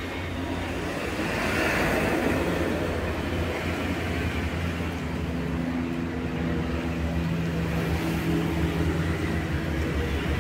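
Road traffic noise: a steady low rumble of passing vehicles, with one swelling louder about one to three seconds in.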